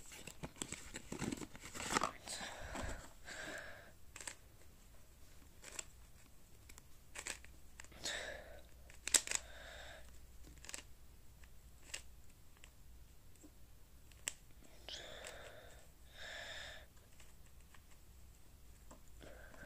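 Paper box of a QiYi plastic speed cube being opened and handled, with rustling and the flaps scraping, then sharp little clicks as the cube is taken out and its layers turned. Short breaths through the nose come and go between the clicks.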